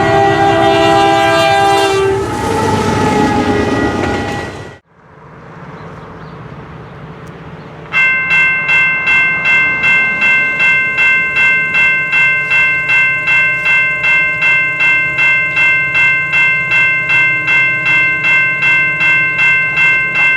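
Locomotive's multi-note Nathan AirChime horn sounding a chord, breaking off about two seconds in and trailing away under the rumble of the passing train. After a cut, a bell rings steadily about twice a second from about eight seconds in.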